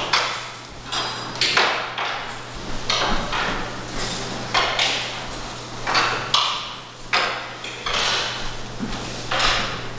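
Plates and cutlery being set down and slid on wooden tables: repeated clinks and knocks, one or two a second, some ringing briefly, with scraping between them.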